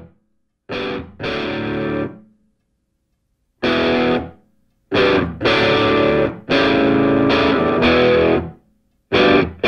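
Outro music: distorted electric guitar chords, each struck and held briefly, then stopped dead with a short silence before the next.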